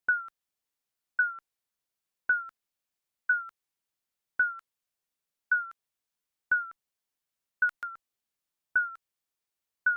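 Digital countdown timer beeps: a short, high electronic blip with a slight downward bend, about once a second, marking each second. It is doubled once near the end.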